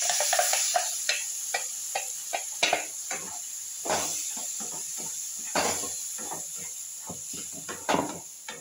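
Ground masala tipped from a steel mixer jar into a hot non-stick kadai, sizzling as it hits the pan, then a wooden spatula stirring and scraping through the onion-capsicum mixture with many irregular knocks against the pan.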